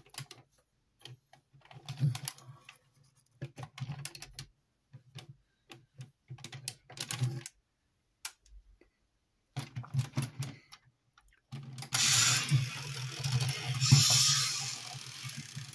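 Plastic clicks and rattles of an Iron Kong Zoids model being handled and turned. About 11 seconds in, its battery motor and plastic gearbox switch on and run continuously with a mechanical whirring clatter as the toy starts to move.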